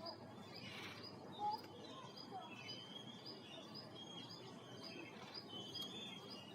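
Faint bird chirps repeated about twice a second, with a few other short bird whistles, over a steady outdoor background hiss.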